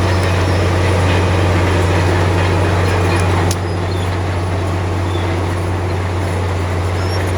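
Heavy diesel bulldozer engine running steadily with a deep hum, its level dropping a little after a short click about halfway through.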